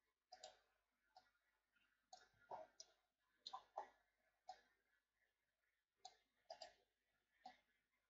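Faint computer mouse clicks, about a dozen short clicks at irregular intervals, some in quick pairs, over near silence.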